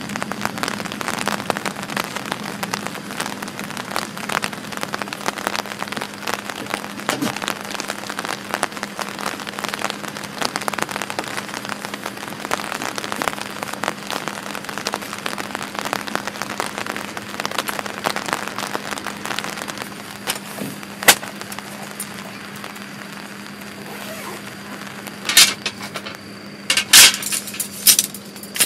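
Heavy rain pattering on a tarp and wet grass as a dense stream of drops, easing after about twenty seconds, over a steady low hum. Near the end come several sharp metallic clicks and clatters from a folding camp chair's metal frame being put together.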